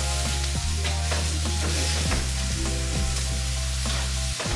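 Music with deep, sustained bass notes that change pitch about every one to two seconds, over a steady sizzling hiss from food frying in a pan.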